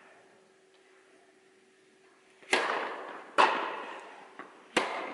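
Tennis ball being hit in a rally on an indoor court: about two and a half seconds of quiet, then three sharp hits of the ball, each ringing on in the hall's echo.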